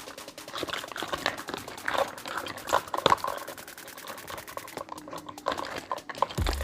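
Miniature toy kitchen pieces being handled: a quick run of small clicks and taps with light rustling.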